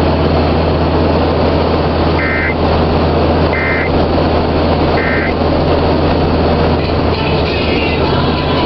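Steady road and engine noise of a moving car, heard from inside, with three short electronic beeps about a second and a half apart near the middle.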